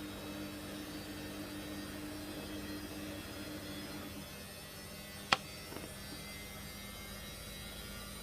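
Steady low hum, with a single sharp firework crack about five seconds in.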